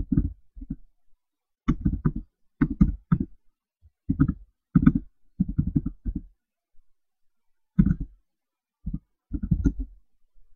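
Computer keyboard typing in short bursts of several quick keystrokes, with pauses between the bursts.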